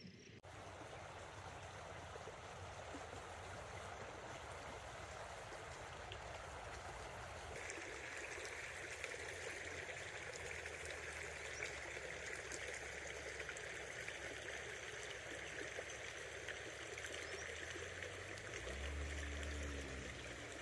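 Shallow river water running steadily, a little brighter and louder about seven seconds in. A brief low hum near the end.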